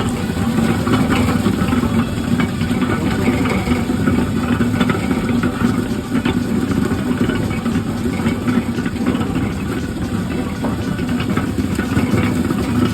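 Sweet potato peeling machine running: a steady mechanical hum with constant fine rattling.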